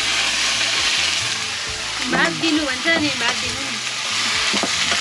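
Food sizzling in a hot pan, a steady hiss, with a few short vocal sounds about two to three seconds in.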